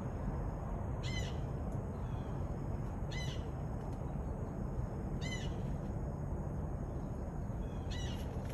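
A blue jay calling, four short harsh calls about two seconds apart, over a steady low rumble.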